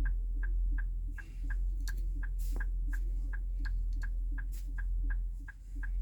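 Hazard-light flasher of a 2020 Infiniti QX60 clicking steadily, about three clicks a second in an alternating tick-tock, over a low hum, with a few sharper handling clicks around the middle.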